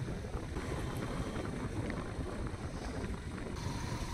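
Steady low wind rumble buffeting the microphone while moving along a road at riding speed.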